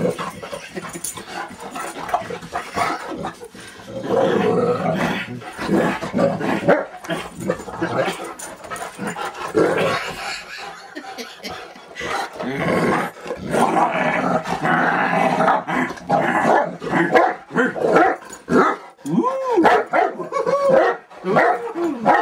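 St. Bernard play-growling and barking while wrestling, in irregular runs of growls with short barks, and a few rising-and-falling yelps near the end.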